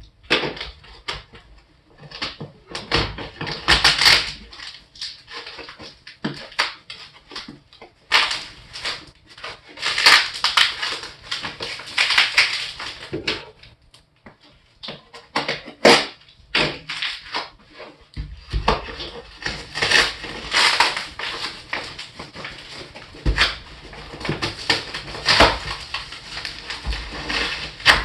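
A package being opened by hand: irregular crinkling, rustling and tearing of packing material, broken by sharp knocks and clicks.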